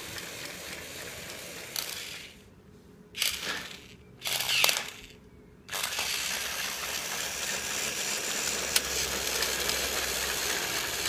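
Battery-operated toy train's small motor and gears running with a steady rattling whir, which drops away for a few seconds in the middle, broken by a couple of short clatters, and then runs steadily again.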